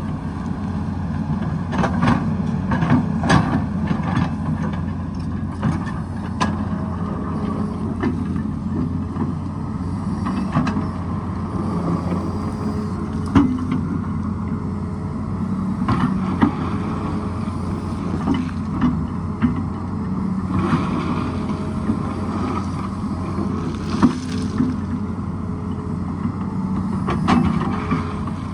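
Excavator's diesel engine running steadily under load, with repeated sharp knocks and clatters of the steel bucket striking and scraping rock.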